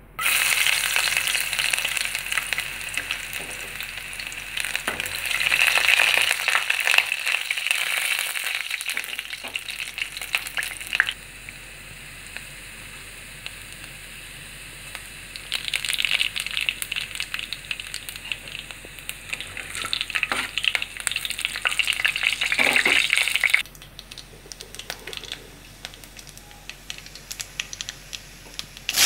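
Chopped garlic sizzling in hot oil in a metal kadai, a steady hiss full of small pops. The sizzle drops abruptly in level about eleven seconds in, rises again, and falls back near the end.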